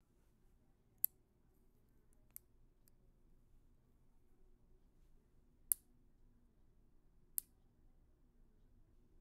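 Nail clipper snipping: three sharp, bright clicks spaced a few seconds apart, with a couple of fainter ticks shortly after the first.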